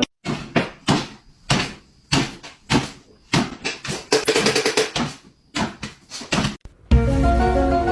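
An irregular series of about a dozen knocks and thuds over some six seconds. Music starts near the end.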